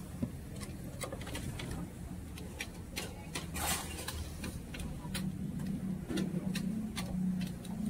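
Kitchen clatter at a noodle stall: a wire noodle strainer, long cooking chopsticks and bowls knocking and tapping in quick irregular clicks, with one brief hiss about three and a half seconds in, over a steady low hum.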